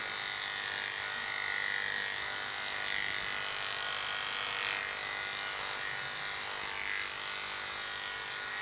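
Electric dog grooming clippers with a 13 mm comb attachment running with a steady buzz, clipping the top and sides of a soft-coated wheaten terrier's tail.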